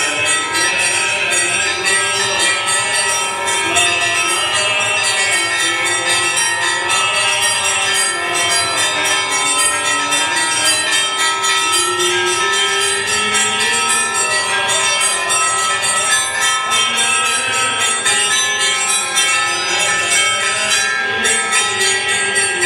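Church bells ringing a continuous festive peal, many overlapping ringing tones, with voices singing underneath.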